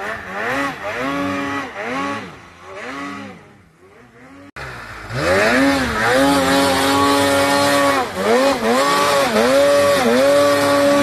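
Snowmobile engine revved in quick, repeated throttle blips while the track churns in deep powder. About four and a half seconds in it cuts to another sled revving louder, with longer held throttle and brief dips.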